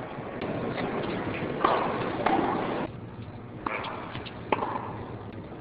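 Tennis ball being struck by rackets and bouncing during rallies: a sharp pock every second or so. It sounds over a steady background hiss that drops away abruptly about three seconds in.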